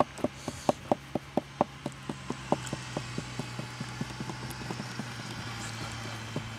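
A quick run of soft taps, about four a second, fading away over the first few seconds, over a steady low hum.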